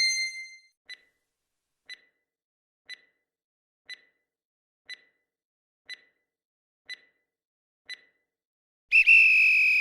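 Countdown timer sound effect: eight short electronic ticks, one a second, followed near the end by a loud electronic alarm tone held for about a second, signalling that the time to answer is up.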